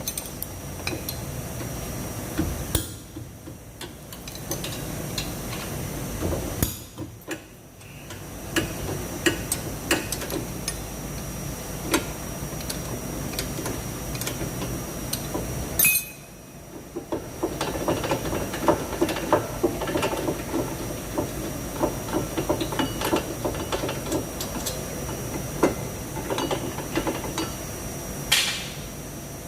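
Hand tools working on a car's disc brake caliper as the caliper housing is unbolted and taken off: a run of metallic clicks, taps and knocks, turning into a long stretch of rapid clicking in the second half.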